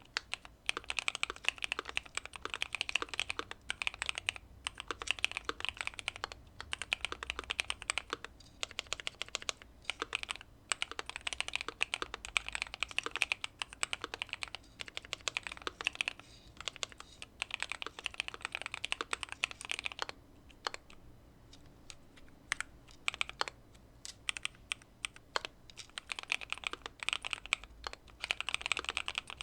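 Typing on a Keychron Q2 mechanical keyboard with factory-lubed Pearl Lemon linear switches, tape mod and case foam: fast runs of keystrokes broken by short pauses, thinning to scattered single presses about two-thirds of the way through before picking up again.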